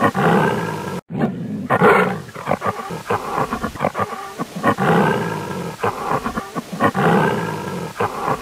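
A lion roaring several times, deep rough calls with rumbling breaths between them, and a brief break in the sound about a second in.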